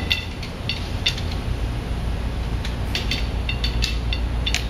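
Light, irregular clicks and clinks of frame poles being twisted and fitted into the holes of a fabric display frame, more of them in the second half, over a steady low hum.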